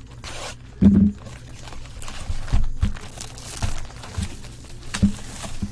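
Cellophane shrink wrap crinkling and tearing as a sealed cardboard trading card box is unwrapped, with several soft knocks from the box being handled, the strongest about a second in.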